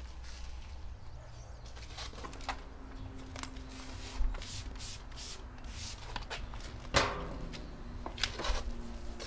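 Short, irregular rubbing and swishing strokes of hands-on car detailing work, with a sharper, louder one about seven seconds in, over a faint low hum.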